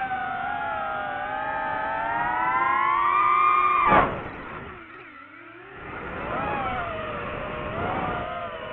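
DJI FPV drone's motors and propellers whining, rising in pitch as throttle builds over the first four seconds. A sharp burst about four seconds in is followed by a sudden drop to a much quieter stretch as the throttle is cut during a flip. The motors then spin back up, wavering in pitch.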